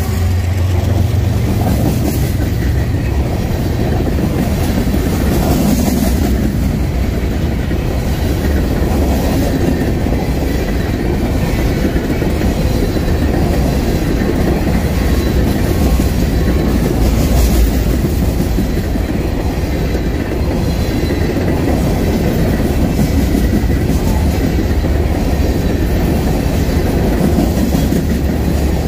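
Covered hopper cars of a BNSF freight train rolling past close by: a loud, steady rumble and rattle of steel wheels on the rails.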